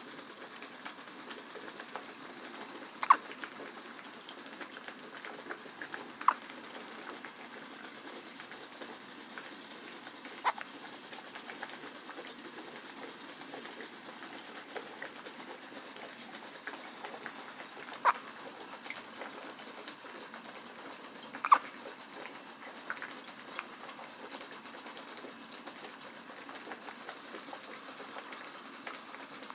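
Newborn baby hiccuping: five short, sharp hics at uneven gaps of a few seconds, over a steady hiss.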